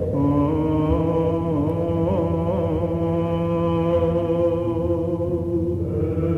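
Byzantine chant of the Orthodox Bridegroom service: a man's voice sings a slow, ornamented line of long held notes over a steady low drone.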